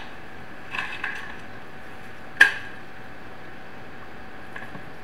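Whiteboard marker handled at the board: a few light clicks about a second in, then one sharp click about two and a half seconds in, over a steady low hiss.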